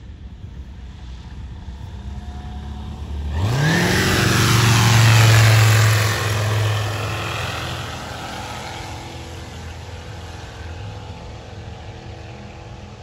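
Ultralight aircraft's piston engine and propeller on a low flypast. The engine note rises sharply about three seconds in, is loudest as the plane passes close by around the middle, and then fades as it climbs away.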